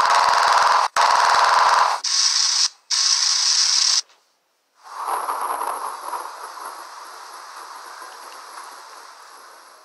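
Machine-gun fire sound effect in four rapid bursts over about four seconds. It is followed by a rush of noise with a thin high whine, fading away over the next five seconds.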